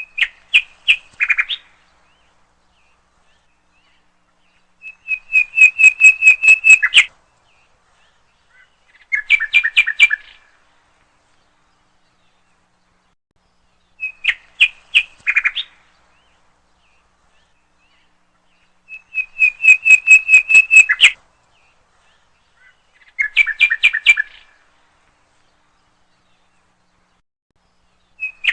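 Birdsong in three short phrases: a few quick chirps, then a rapid run of repeated notes, then a lower two-note chirping. The same sequence comes round again after about 14 seconds, with dead silence between phrases, which suggests a looped bird recording laid over the soundtrack.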